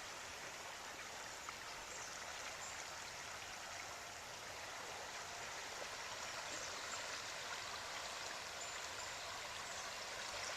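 Steady rush of fast-flowing floodwater from the swollen Rum River, heard faintly and without letup.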